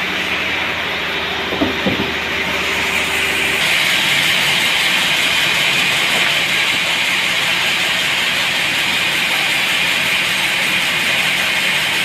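Sawmill running: a loud, steady hissing machine noise, with two short knocks about two seconds in. A low hum drops out a little over three seconds in, and the hiss then carries on evenly.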